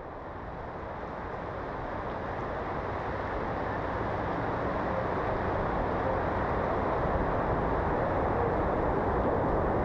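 Recording of heavy rain fading in slowly as a steady, dull rush. A few faint held tones begin to surface near the end.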